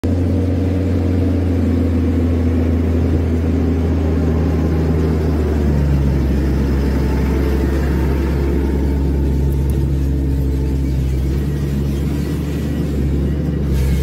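Tractor engine running steadily under load as it pulls a seed planter over the camera, a low drone whose pitch shifts slightly about six seconds in.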